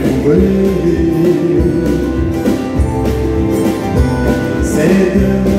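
Live acoustic country music: several acoustic guitars strummed together in a steady rhythm.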